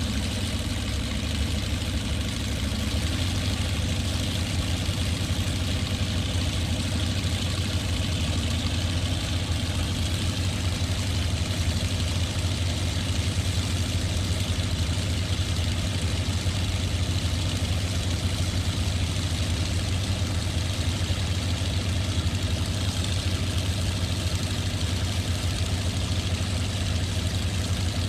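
Airboat engine and its air propeller running steadily at an even speed, a constant low drone with no change in revs.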